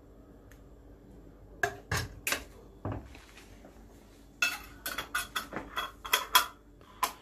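A few clinks of metal and glass, then a metal screw-on lid is twisted onto a filled glass jar, making a quick run of clicks and scrapes over the last few seconds.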